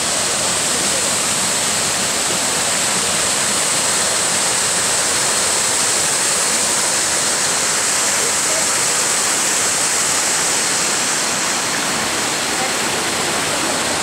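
Water rushing down the Kuang Si Falls cascades: a steady, unbroken rush with no let-up.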